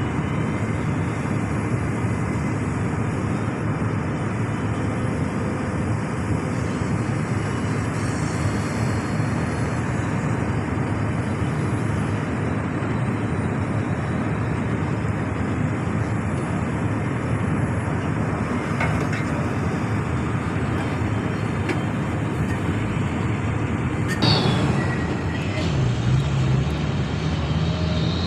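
Heavy diesel machinery running steadily: the excavator working while it loads a dump truck. A sudden loud burst of noise comes about 24 seconds in, then the engine note climbs near the end.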